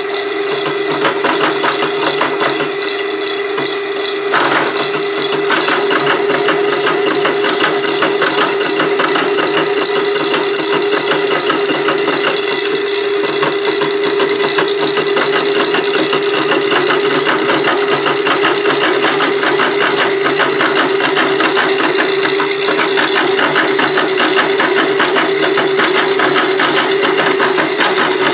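Slitting saw on a milling machine cutting through a metal ring: a loud, steady high tone from the spindle and saw over a fast, even chatter of teeth biting the metal.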